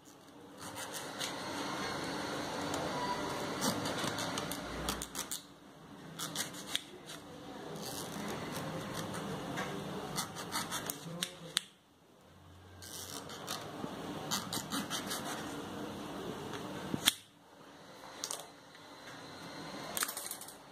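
Small kitchen knife sawing through a tomato held between two forks, in three long stretches of steady rasping. Between the stretches come sharp clicks as the slices are finished.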